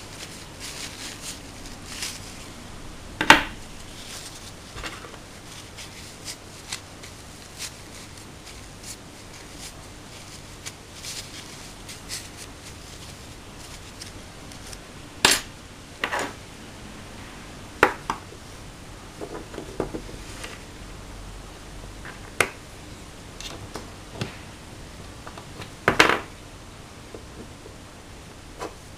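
Small metal airsoft pistol parts being handled, wiped and set down on a wooden table: scattered clicks and light knocks, the loudest about three seconds in, again at about fifteen seconds, and near twenty-six seconds.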